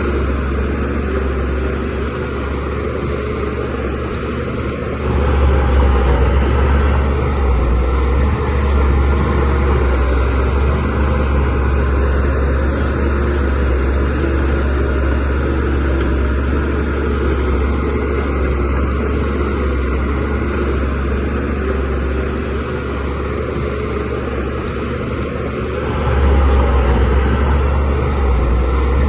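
Shantui DH17C3Pro bulldozer's diesel engine running steadily under work, with a deep low-pitched drone. It gets louder about five seconds in and again near the end as the machine pulls harder.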